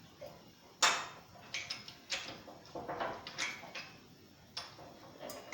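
Irregular metal clinks and knocks, about seven of them with the loudest about a second in, from working a forged steel slip hook back onto the crossbar inside a homemade drop hammer's ram.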